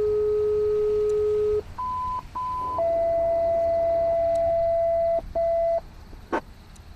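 Fire dispatch paging tones over a scanner radio, alerting units to a call. A long low steady tone, two short higher beeps, then a long tone of middle pitch that breaks off and sounds once more briefly.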